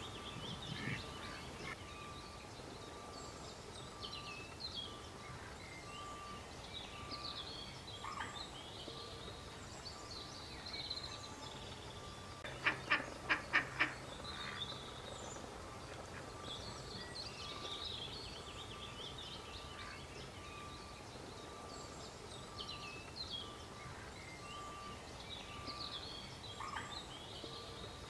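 Duck quacking five times in quick succession about halfway through, over a constant scatter of short high chirping calls and a faint, evenly repeating pulsed tone.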